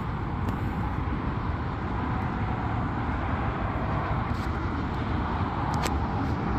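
Steady rumble of road traffic, with a couple of light clicks in the second half.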